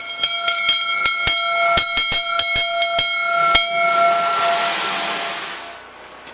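A metal bell rung rapidly, about a dozen strikes in three and a half seconds, its ringing carrying on after the last strike; a rushing hiss rises over it and fades out about six seconds in.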